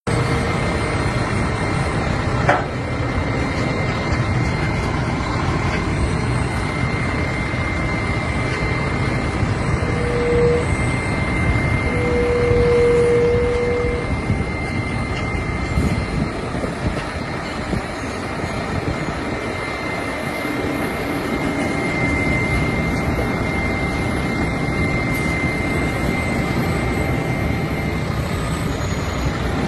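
CAT 312 milling machine running, a steady heavy-machine drone with a constant high whine, and a short mid-pitched tone about ten seconds in followed by a longer one a couple of seconds later.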